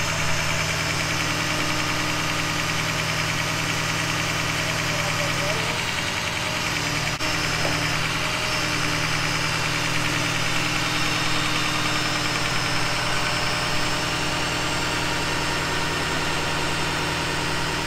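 Ford F-550 wrecker's engine idling steadily, with one sharp click about seven seconds in.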